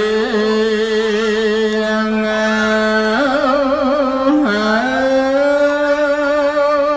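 A Buddhist monk's solo voice chanting Khmer smot, the melismatic sung recitation: long held notes with wavering ornaments, stepping up in pitch about three seconds in and again a little later.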